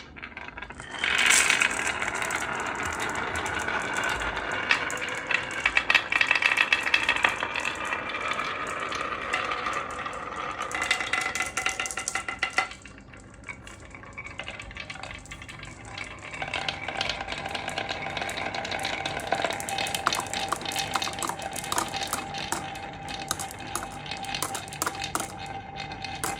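Marbles rolling and clattering down a marble run: a continuous rolling rush with ringing tones and many quick clicks as they hit the track. It dies down briefly about halfway through, then picks up again with a steady ringing tone under the clicks.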